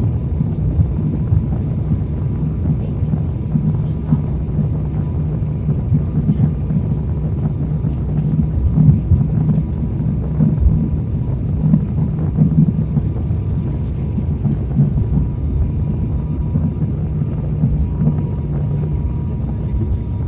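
Steady airliner cabin noise on final approach: a low rumble of engines and airflow over the wing, with a steady low hum running through it.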